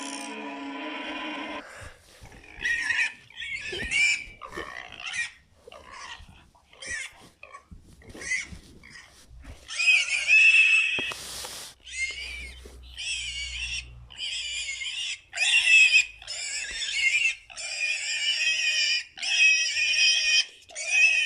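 Showa-era Godzilla film monster roar sound effects: shrill screeching cries, first in short clipped bursts, then from about ten seconds in as longer shrieks of about a second each, repeated one after another.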